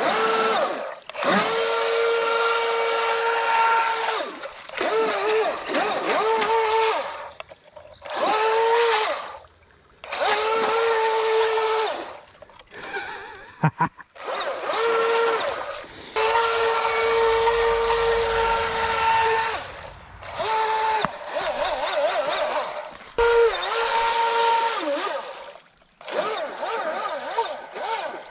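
Atomik Barbwire 17-inch RC boat's electric motor whining in about ten throttle bursts of one to three seconds each, the pitch rising as each burst starts, with the hiss of the boat's spray.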